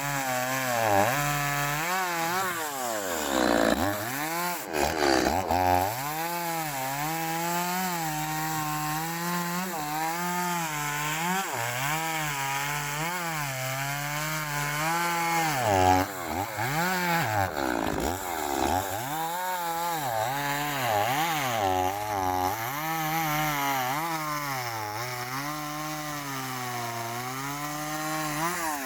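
Interskol PTsB-180 two-stroke petrol chainsaw running and cutting wood; its engine pitch keeps dropping and recovering as the chain bites, with deeper bogs a few seconds in and again about midway.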